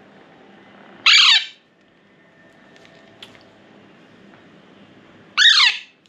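Alexandrine parakeet chick giving two loud squawking food-begging calls, each falling in pitch over about half a second, about a second in and again near the end. The chick is hungry and is calling for more of the syringe feed.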